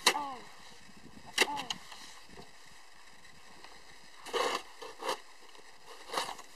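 Snow shovel blade striking the ice twice, each sharp hit ringing on with a tone that falls away, then scraping and pushing snow in three short strokes.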